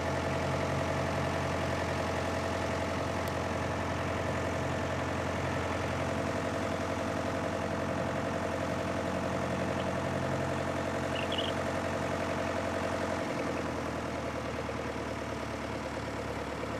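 White 2-60 tractor engine running steadily at low speed, with a slight drop in its low note about three-quarters of the way through.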